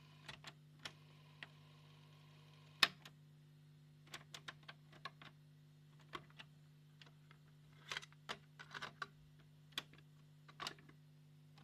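Mechanical clicks and clunks of the piano-key transport buttons and cassette compartment of a Grundig TSC 350 cassette deck being pressed and released, about a dozen at irregular intervals, the loudest about three seconds in, over a low steady hum.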